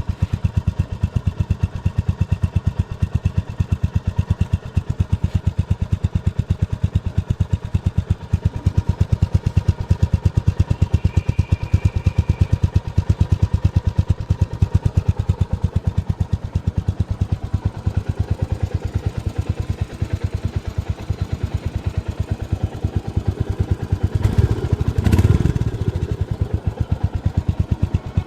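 Royal Enfield Meteor 350's single-cylinder engine idling in neutral with a steady, even exhaust beat. Near the end the throttle is blipped once, briefly raising the revs before it settles back to idle.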